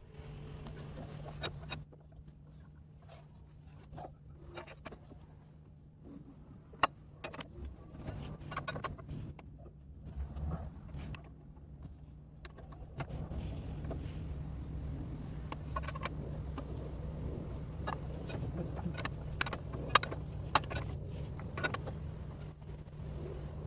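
Scattered light clicks and knocks of hand work on a motorcycle, over a steady low hum; the clicks grow busier about halfway through.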